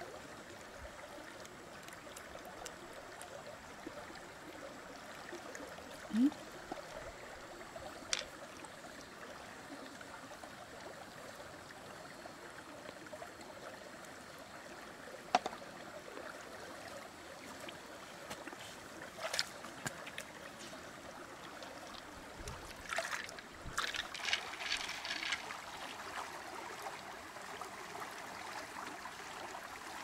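Shallow creek water flowing steadily over stones, with a few sharp clicks here and there and a denser run of small clicks and rattles in the last quarter.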